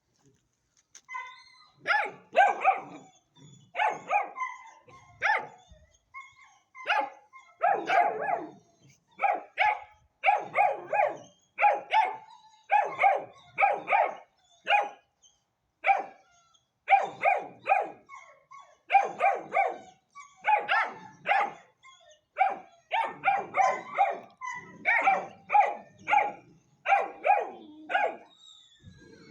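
Hanoverian scent hound puppy, about ten weeks old, barking over and over in quick runs of two or three barks with short gaps between, starting about a second in.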